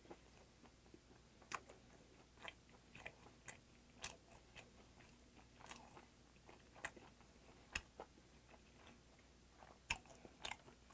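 Faint chewing of grilled Patagonian toothfish with its skin, mouth closed: soft, scattered wet mouth clicks at irregular intervals.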